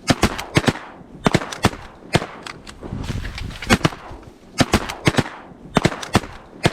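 Several hunters' shotguns firing at ducks overhead, many shots in quick overlapping clusters.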